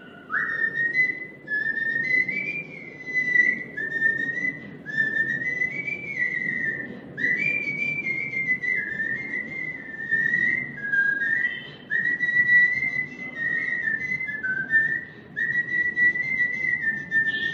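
A person whistling a song tune: a single clear line of notes that step and slide up and down, in short phrases with brief breaks between them.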